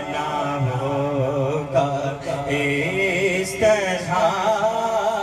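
A young man's solo voice singing a manqabat, an Urdu devotional song in praise of Imam Hussain, holding long wavering notes with melismatic ornaments between the lines of verse.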